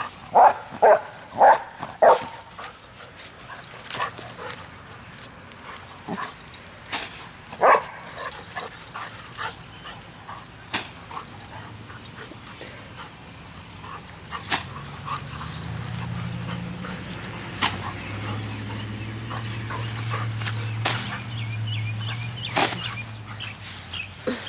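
A frightened dog barking at a balloon it is afraid of: four sharp barks in quick succession at the start, then one more about eight seconds in, with scattered clicks in between. A low steady drone comes up in the second half.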